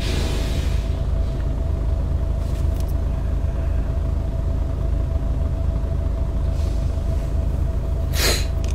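Steady low rumble of a car, heard from inside the cabin, with a faint steady hum over it. A short sharp noise comes near the end.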